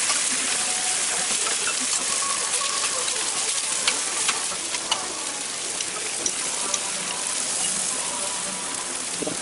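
Dosas sizzling on a large flat griddle (tawa): a steady frying hiss, with a few sharp clicks around the middle.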